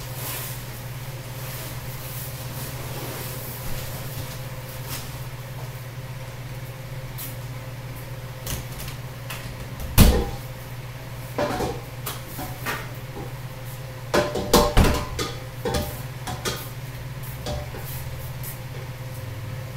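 A door handled with a sharp knock about halfway in, followed by a scatter of smaller knocks and a cluster of clattering bumps a few seconds later, over a steady low hum.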